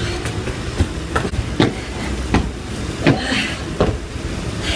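A person doing bodyweight interval exercises: their movement makes sharp, regular thuds about every three-quarters of a second, over a steady low rumble.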